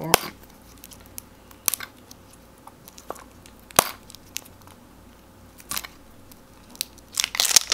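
Fingers picking and peeling the tape seal off the seam of a metal Poké Ball tin. Sparse sharp clicks come a second or two apart, then a short burst of crinkling as the seal starts to pull away near the end.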